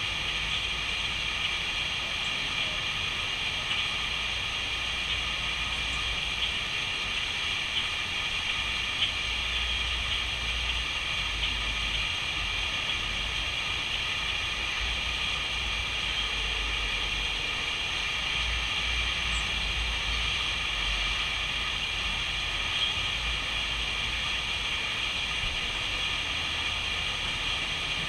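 Steady outdoor hiss with wind gusts buffeting the microphone as a low, uneven rumble.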